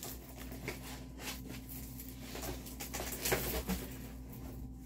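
Faint rustling and small clicks of plastic packaging being handled, over a steady low hum.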